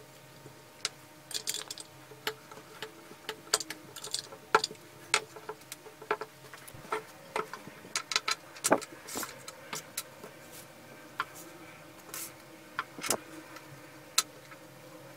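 Small brass sprayer fittings and rings clicking and clinking as they are handled and set down on a wooden table: irregular sharp little knocks, a couple of them louder.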